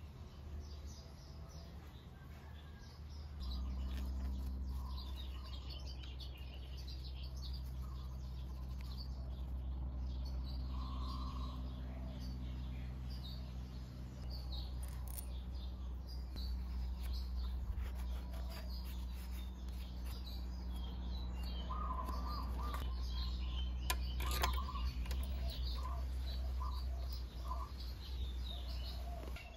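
Small birds chirping on and off, over a steady low hum that gets louder about three and a half seconds in. A few sharp clicks come through near the middle and the end.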